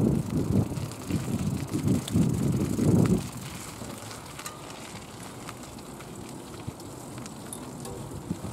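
Wind buffeting the microphone in irregular low rumbling gusts for about three seconds, then a quieter steady outdoor hiss with a few faint clicks.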